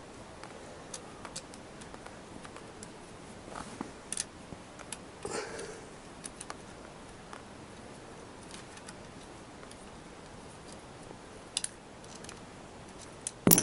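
Scattered light metallic clicks and taps of a hand socket wrench working bolts under a motorcycle engine, with one louder sharp click near the end.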